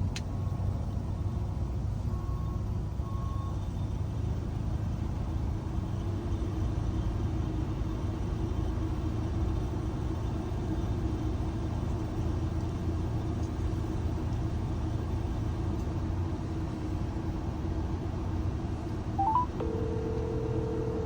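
Low, steady rumble of a vehicle running, with a phone call being placed over it: two short beeps a few seconds in, then near the end a brief chirp and a ringback tone lasting about two seconds.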